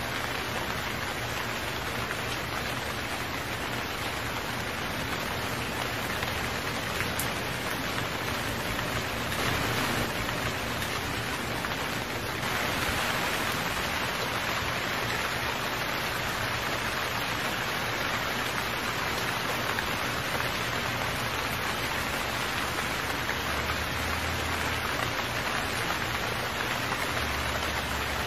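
Heavy rain falling steadily, a dense even hiss that grows a little heavier a little before halfway.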